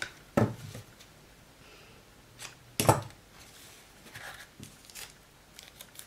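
Objects being handled on a tabletop: two sharp knocks, one about half a second in and a louder one near three seconds, with a few faint rustles and taps between.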